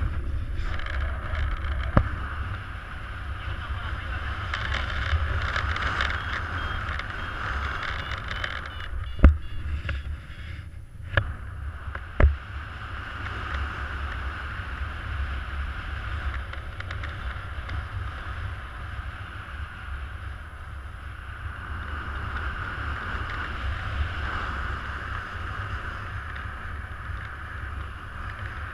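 Wind buffeting the microphone of a harness-mounted camera in paraglider flight: a steady low rumble with rushing air, broken by a few sharp knocks in the first half.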